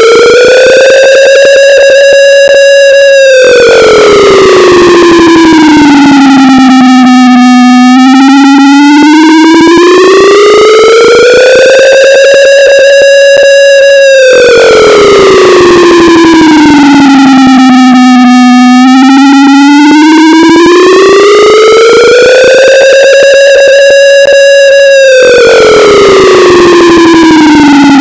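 Low-pitched air raid siren wailing in slow cycles, rising for several seconds, holding briefly at the top, then falling, about two and a half cycles in all. It is boosted to full volume and clipped into harsh distortion.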